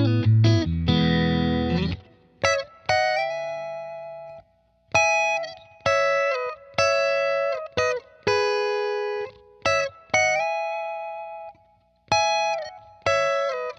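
S-style single-coil electric guitar played through an amp with a clean tone: a strummed chord at the start, then short melodic lead phrases of picked notes with bends and slides, each note left to ring and fade.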